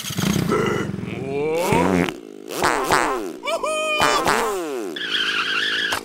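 Animated-cartoon sound track: the larva characters' wordless cries gliding up and down in pitch, over a buzzing, engine-like sound effect for the small toy car one of them is riding.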